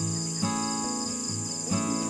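Background music, a melody of pitched notes changing about every half second, over a steady high cricket trill.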